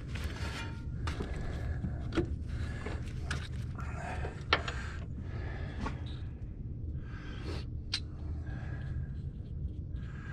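Scattered light metal clicks and knocks of bolts and tools being handled while steel bolts are started by hand into an aluminum engine part, over a steady low hum.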